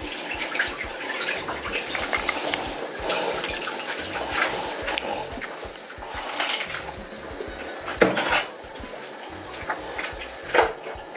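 Kitchen clatter of pots, bowls and utensils, with a tap running. A sharp knock comes about eight seconds in and another near the end.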